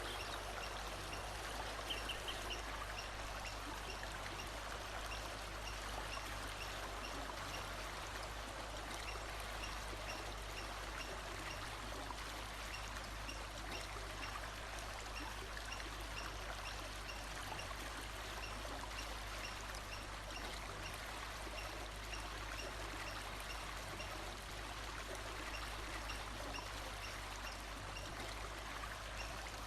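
Steady running water of a stream, with a brief bird chirp about two seconds in and faint high chirps in the background.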